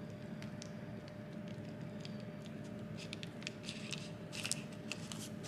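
Soft crinkling and rustling of baking paper and sticky pastry being handled as a pastry strip with apple slices is rolled up, with a cluster of sharper crinkles about three to four and a half seconds in. A steady low hum with a faint high tone runs underneath.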